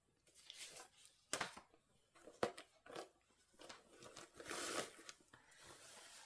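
Faint handling of small plastic diamond-painting supplies: a few sharp clicks and a short crinkly rustle about two-thirds of the way in, like a bag of drills being picked up and opened.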